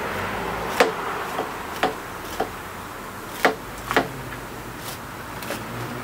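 A handful of sharp, irregular snaps and clicks as a hand tool works through the root ball of a persimmon bonsai, cleaning out and breaking the roots.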